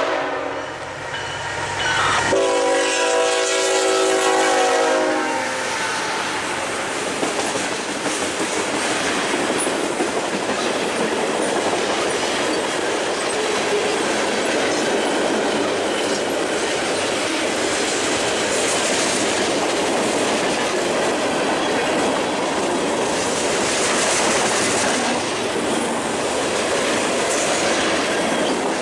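Diesel locomotive horn sounding a chord: one blast that ends just after the start and a longer one from about two to five seconds in. Then the steady noise of the train's cars rolling past on the rails.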